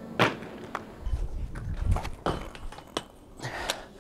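Inline skates on pavement: a hard knock about a quarter second in, then scattered clicks and taps of wheels and frames, over a low rumble of wind on the microphone.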